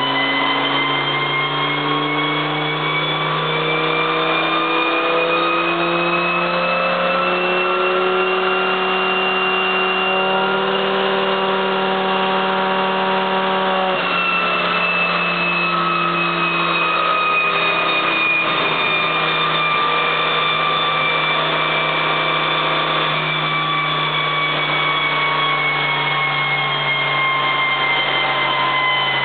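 Turbocharged Volvo station wagon engine under load on a chassis dyno, its pitch climbing for about ten seconds and holding briefly. At a sudden break about halfway through, the pitch starts falling steadily as the engine and rollers wind down.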